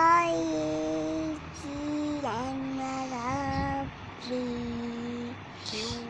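A young child singing in long, drawn-out notes, about five held notes with swooping rises and falls in pitch between them.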